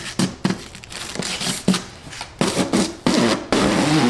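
Protective plastic wrap crinkling and crackling as it is peeled off a 3D printer's AMS filament unit. The crackles come in irregular bursts that grow denser and louder about two and a half seconds in.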